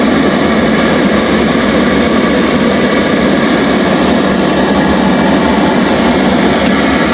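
Steady, loud drone of a light propeller plane's engine and the rush of air past it, heard from inside the cabin.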